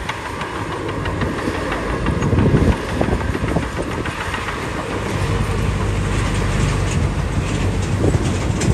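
Shantui DH17B2 crawler bulldozer at work: its diesel engine running steadily, with the rattling clank of its steel tracks throughout.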